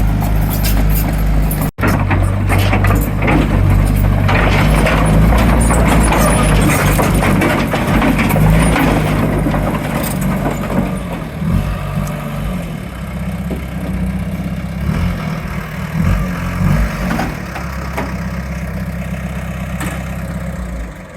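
Komatsu D37PX crawler bulldozer's diesel engine running steadily under load while grading dirt, louder through the first half. There is a brief break just under two seconds in.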